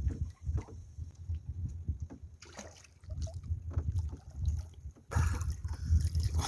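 Shallow seawater splashing and sloshing in irregular bursts, louder from about five seconds in, over a steady low rumble.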